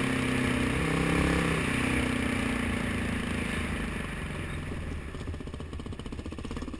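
Dirt bike engine running under throttle on a dirt trail, heard close up from the rider's own bike, with wind and trail noise. Its pitch steps up and down over the first couple of seconds, then drops to a lower, evenly pulsing run from about four seconds in as the throttle eases.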